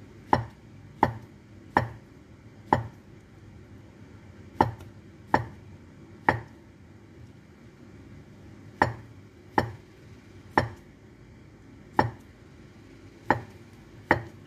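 Chinese cleaver cutting through sausages and knocking on a wooden chopping board, one sharp knock per slice. About thirteen knocks come unevenly, roughly one a second, with a longer pause around the middle.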